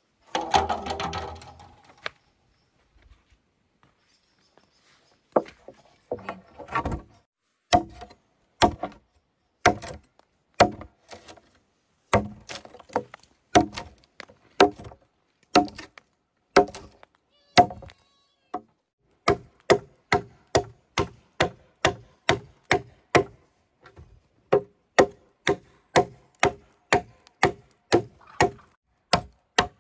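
Repeated sharp strikes on wood with a hollow ring, slow and uneven at first, then settling into about two strikes a second from around the middle. A short scraping sound comes just before the strikes begin.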